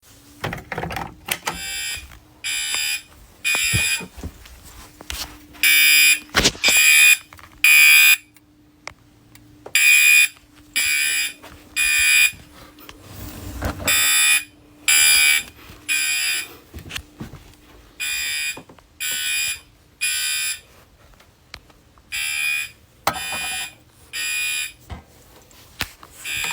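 Fire alarm horn sounding the temporal-three evacuation pattern: three harsh half-second blasts about a second apart, then a pause, repeating about every four seconds.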